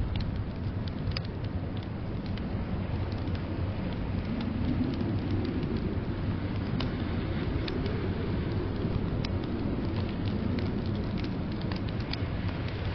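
Wood fire crackling in a stone fireplace, scattered sharp pops over a steady low rumble of blizzard wind that swells in the middle.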